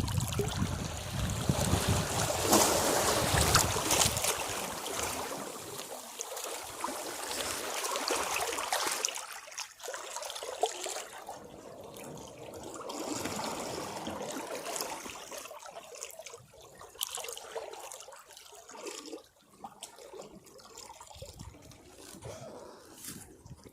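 Sea waves breaking against rocks: a loud rushing surge with a low rumble in the first few seconds, then smaller surges, with water fizzing and trickling back off the rocks as it fades.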